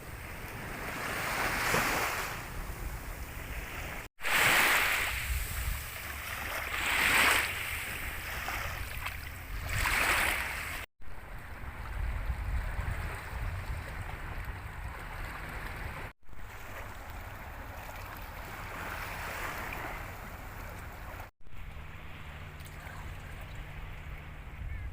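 Sea waves washing onto a beach, surging and receding several times in the first half, then a steadier wash, with wind buffeting the microphone. A few very short dropouts break the sound.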